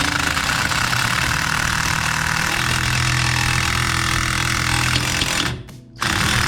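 A power tool runs hard and continuously, driving a bolt to push a seized rear brake drum off its hub. It cuts out briefly near the end, then starts again.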